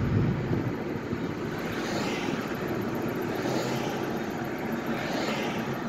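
Car driving along a road: a steady low rumble of engine and tyres, with three brief hissing swells.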